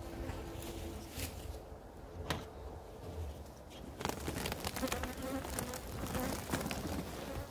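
Honeybees buzzing around an opened hive, with a few light knocks.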